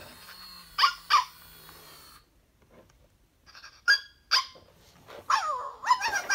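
FurReal Friends Teacup Pups toy puppy giving electronic yips from its speaker as its back is stroked: two short yips, then two more, then a longer whimpering cry that falls in pitch and a last yip near the end. Its motor whirs faintly during the first two seconds.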